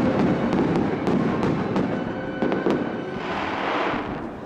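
Aerial fireworks bursting overhead: a rumbling barrage with several sharp cracks, then a hissing crackle near the end as glittering stars burn out.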